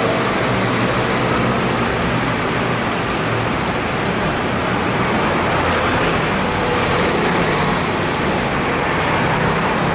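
2016 Subaru XV running with its air conditioning on: a steady running noise with no unusual sound from the AC compressor, though the system is not cooling.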